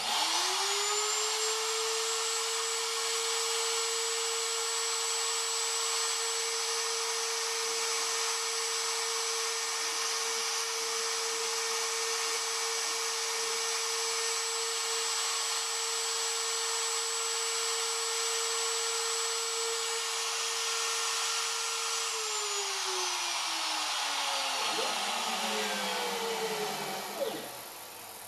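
Porter Cable router motor on a CNC machine spinning up to speed at once and running with a steady high whine while a small V-bit engraves a wooden block. About three-quarters of the way through it is switched off and coasts down with a falling whine over several seconds, with one short knock just before it dies away.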